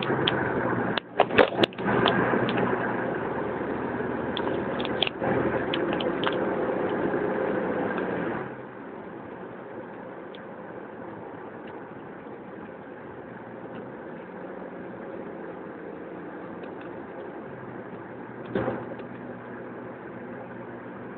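1991 Mitsubishi 3000GT SL's V6 engine running while misfiring, with a few sharp clicks in the first seconds. About eight seconds in the engine sound drops suddenly to quieter, steady running, with one brief swell near the end.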